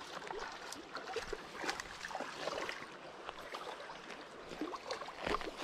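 A hooked smallmouth bass splashing in shallow creek water while it is played in, with irregular small splashes over the flow of the creek.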